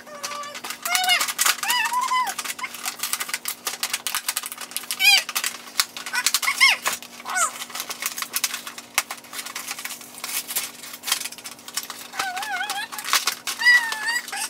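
Cardboard box and plastic packaging being handled and opened: a rapid, uneven string of crinkles and clicks. Now and then a young child's short, high-pitched wordless vocal sounds that waver up and down.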